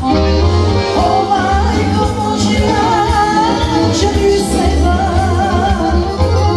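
Live wedding band playing through PA loudspeakers, with a woman singing a wavering melody into a microphone over a steady, rhythmic bass beat.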